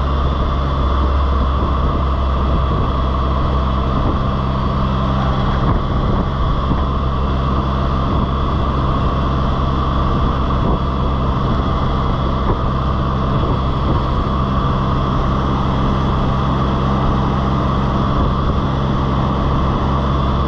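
Can-Am Spyder three-wheeled motorcycle running steadily at road speed: a low engine hum under steady wind noise across the windscreen.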